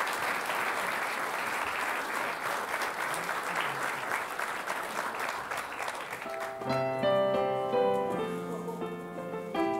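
Audience applauding. About six and a half seconds in, the clapping gives way to a piano playing an introduction in chords.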